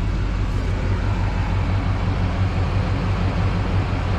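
Pickup truck engine idling steadily, a low even rumble.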